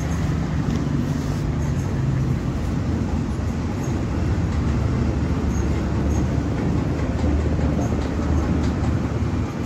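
A car engine idling steadily: a low, even drone.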